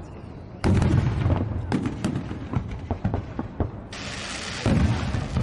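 Fireworks going off: a loud boom about half a second in, followed by a run of sharp crackling pops, with a hissing burst and another boom near the end.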